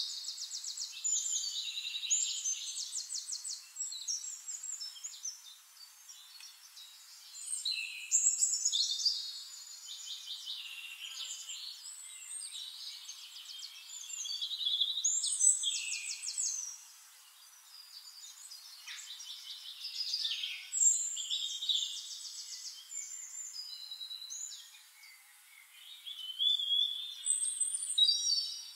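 Songbird singing: high phrases of fast trills that repeat every few seconds, with quieter chirping between them.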